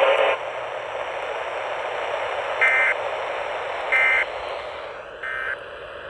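Static hiss from a handheld weather radio tuned to AM 1620 with no station coming in, and three short electronic beeps a little over a second apart. The hiss grows fainter near the end.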